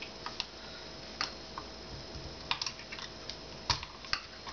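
Scattered, irregular small clicks and taps from handling an H&R Pardner Protector 12-gauge pump shotgun's receiver as its trigger group pins are pushed out and the trigger group is worked loose.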